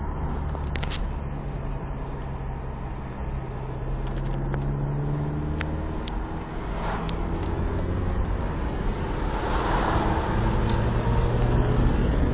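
Car engine and road noise heard inside a moving car's cabin. The engine note rises and falls with acceleration and grows louder and steadier over the last few seconds, with a few sharp clicks of handling noise.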